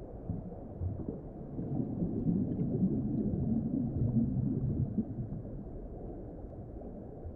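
Low underwater rumble of moving water, swelling a couple of seconds in and easing off near the end.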